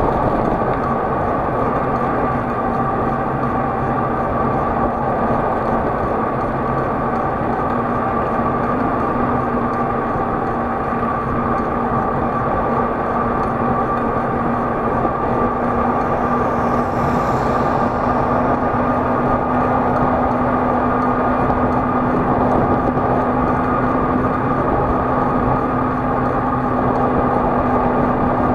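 Motor vehicle running steadily, with engine hum and road noise that hold even throughout and a low drone that rises a little in pitch about nine seconds in.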